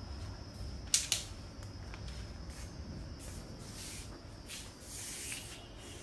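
Two sharp clicks about a second in, then several short rubbing, swishing noises, over a low steady hum.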